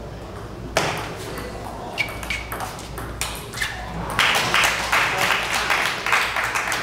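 Table tennis ball clicking off bats and table in a rally, a sharp hit every half second to a second. From about two-thirds of the way in comes a rapid, denser run of sharp taps.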